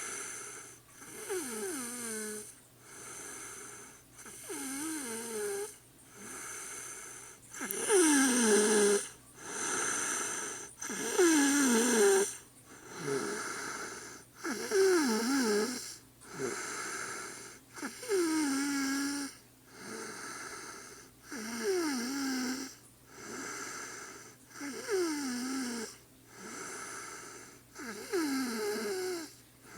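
A woman snoring in her sleep, one breath about every one and a half seconds, each snore carrying a wheezy tone that slides down in pitch.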